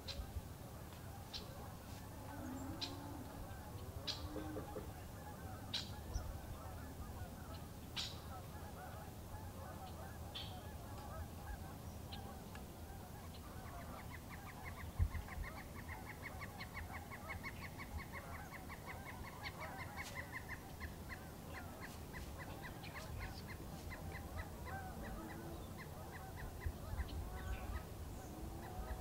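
A flock of geese honking continuously, mixed with sharp high chirps from small birds and, about halfway through, a fast even trill. A single low bump sounds near the middle.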